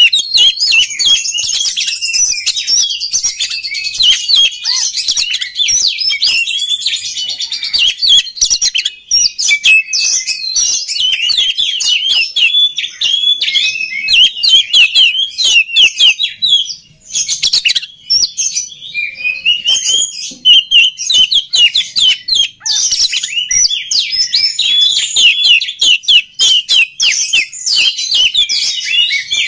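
Oriental magpie-robin (kacer) singing a rapid, continuous run of chirps, whistles and trills, with a short pause about halfway through.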